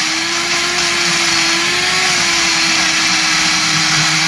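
Ninja personal-size blender running steadily, blending a smoothie of frozen mixed berries, spinach and almond milk in its cup: a loud, even whir over a steady motor hum.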